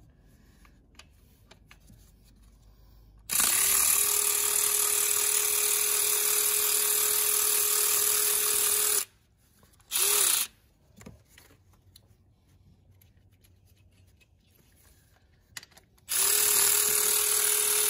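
Snap-on cordless ratchet motor whirring with the trigger held, spinning in the air. It runs steadily for about six seconds, stops, gives a short burst, then runs again near the end.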